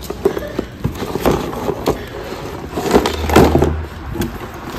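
Wiring harness being handled in a cardboard box: bundles of rubber-sheathed cable rustling and slapping against the cardboard, with irregular clicks from the plastic connectors.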